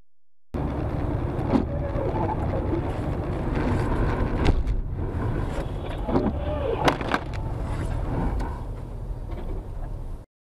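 Steady low rumble of a car driving, heard from inside the car, with several sharp knocks scattered through it; it cuts off suddenly near the end.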